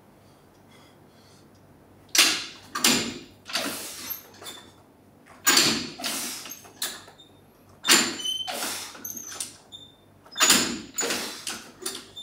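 Reps of a single-arm landmine press with a plate-loaded barbell. The lifter gives a pair of sharp, loud breaths with each rep, about every two and a half seconds, starting about two seconds in.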